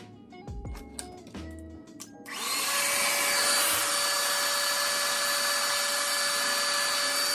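A small electric motor starts up about two seconds in, its pitch rising briefly, then runs steadily with a loud whirring hiss and stops abruptly. Soft music plays before it.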